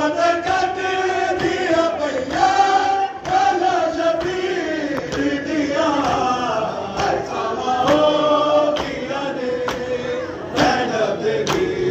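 Men's voices chanting a slow, drawn-out Muharram lament with long held notes. Scattered sharp slaps from hands beating on bare chests (matam) come through the chant.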